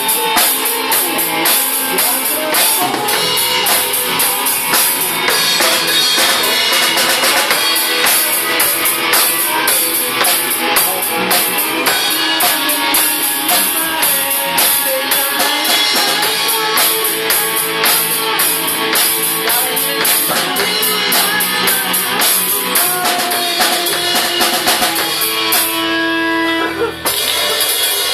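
Live rock band playing: drum kit with cymbals driving a steady beat under electric guitar and a harmonica played into a hand-held microphone. Near the end the drums pause briefly under a single held note.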